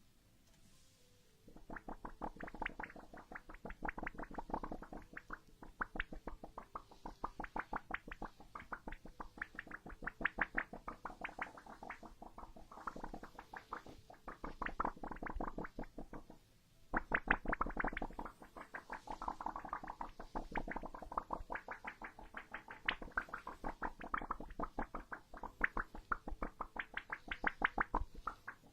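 A deck of playing cards being handled, giving long runs of rapid crisp clicks, several a second, starting about a second and a half in, with a brief pause a little past halfway before the clicking resumes.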